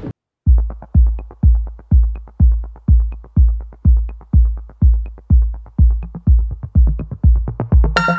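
Electronic background music. After a brief silence it starts up with a steady kick drum at about two beats a second and light ticking hits between the beats. Sustained synth chords come in near the end.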